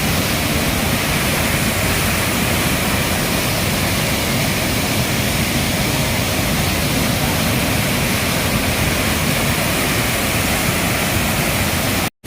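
Steady roar of rushing water from a waterfall, loud and even.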